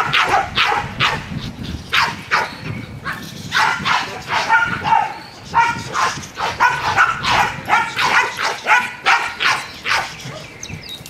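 Protection-trained dogs barking repeatedly in quick, irregular volleys: guarding barks at a man moving in to attack the person they are protecting. The barking thins out about ten seconds in.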